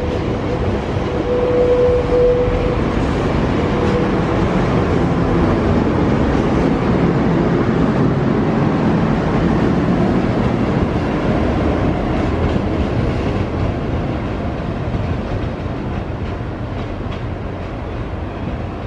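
Spirit of Queensland diesel tilt train pulling out and rolling past the platform: a steady rumble and clatter of carriages over the rails, with a steady tone in the first few seconds. The sound fades over the last few seconds as the rear power car draws away.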